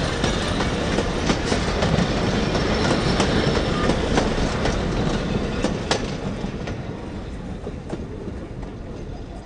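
Steam train running on the rails, its wheels clicking irregularly over the rail joints. The sound fades steadily over the last few seconds.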